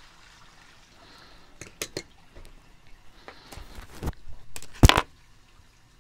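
A clip-on lapel microphone being handled on a shirt: scattered rubbing clicks, then a loud thump against the mic just before the end.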